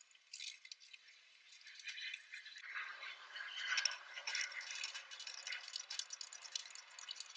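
Faint rattling and scraping of a 1 cm tempered glass tabletop being set into its wooden frame: scattered small clicks at first, thickening into continuous rubbing and clatter about two and a half seconds in.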